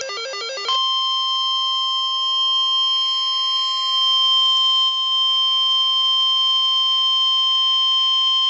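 NOAA Weather Radio warning alarm tone: a single steady, loud electronic tone near 1050 Hz, starting about a second in, that signals a new weather alert is about to be read. It is preceded by a quick sequence of rapidly stepping electronic tones.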